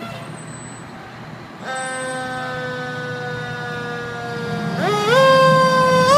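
Fire engine's siren starting about a second and a half in, its pitch sinking slowly, then climbing in steps and sweeping up steeply near the end, over the rumble of the truck's engine as it pulls out of the station.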